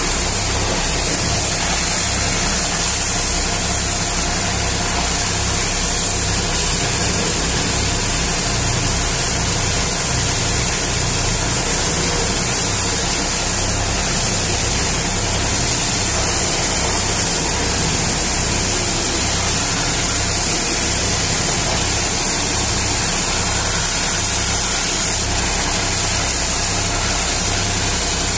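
High-pressure water jet from a pressure-washer lance hissing steadily as it blasts mud off a mining haul truck's huge tyres and underbody, over a steady, throbbing low engine rumble.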